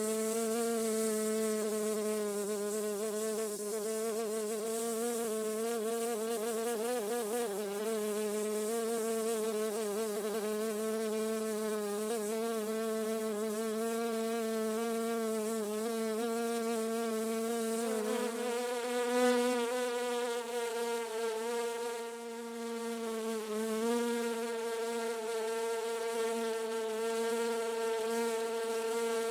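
A bee buzzing: one continuous, steady hum with many overtones, its pitch wavering slightly, briefly rising and getting louder about two-thirds of the way through.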